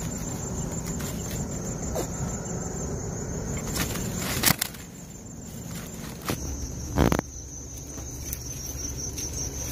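Rustling and handling of a mesh fish net with fish in it on dry grass, with two sharp knocks, about four and a half and seven seconds in.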